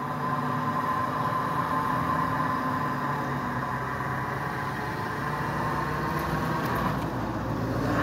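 Skid-steer loader with a snowblower attachment running steadily as it clears sidewalk snow: an engine drone with a high whine in the first few seconds. Near the end a deeper vehicle engine rumble swells as a school bus passes close by.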